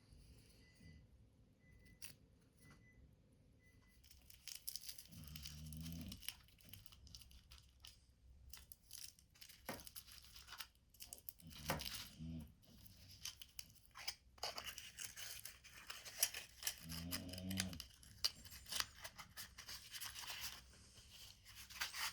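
Paper being handled and torn, crinkling and crackling irregularly from about four seconds in, with three short low sounds among it.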